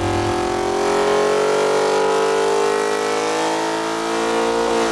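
572-cubic-inch big-block Chevy V8 making a dyno pull under load, its revs climbing steadily through a sweep from 3,000 toward 6,500 rpm. Near the end the revs drop sharply as the pull ends.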